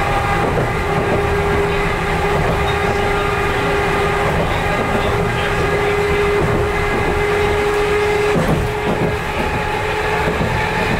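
Chikuho Electric Railroad 3000 series car running along the line, heard from inside the cab: a steady rumble of wheels on rail under a constant drive hum of several tones. A couple of clacks from a rail joint come about eight seconds in.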